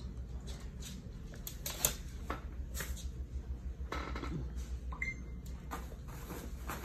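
Small dogs' claws clicking and scrabbling irregularly on a hardwood floor as they scuffle over a blanket, with a short whine about four seconds in.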